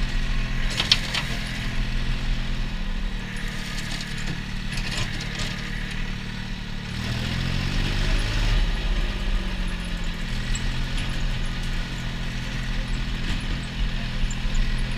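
Small tractor's engine running steadily as it drives, its pitch dipping and then recovering about halfway through, with a few brief crackling, swishing noises now and then.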